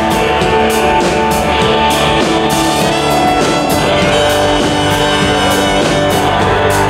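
Live pop-rock band playing on an outdoor stage: banjo, electric guitar and a drum kit keeping a steady beat.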